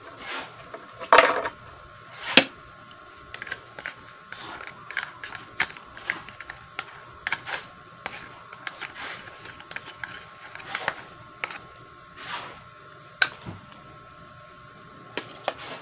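Thin plastic sauce cup being squeezed and crinkled as dressing is poured onto salad, then a spoon scraping and tapping inside it: irregular clicks and crackles, the loudest about a second and two and a half seconds in.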